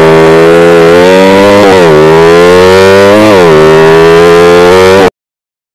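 Sleep-engine drag bike engine on a loud exhaust, accelerating hard through the gears. The pitch climbs, drops at a shift about two seconds in, climbs again, drops at a second shift about three and a half seconds in, and climbs once more before cutting off suddenly near the end.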